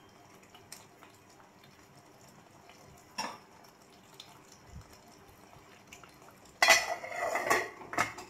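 A metal spoon clinks against an aluminium cooking pan a couple of times, then near the end an aluminium lid is set on the pan with a burst of clattering and scraping, metal on metal.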